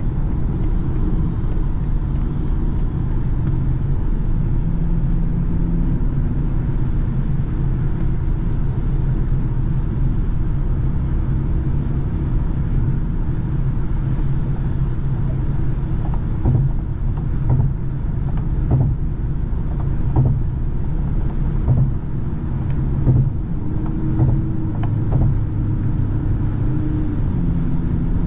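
Inside a BMW cruising on the autobahn: a steady low drone of engine and tyre/road noise. Several short knocks from the road surface come in the second half, and the engine note shifts slightly near the end.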